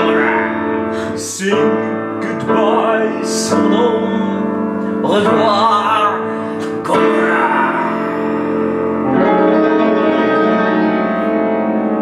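Grand piano playing sustained chords under a woman singing long, held notes. The voice stops about nine seconds in and a piano chord rings on.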